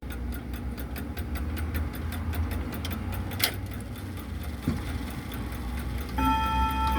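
Emperor grandfather clock ticking steadily over a low hum, with one sharp click about halfway through. A little after 6 s its chime begins, several ringing tones sounding together.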